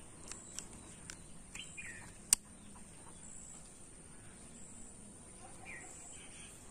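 A few light metallic clicks from a .32 bore revolver being handled, with one sharp click a little over two seconds in. Birds chirp briefly twice in the background.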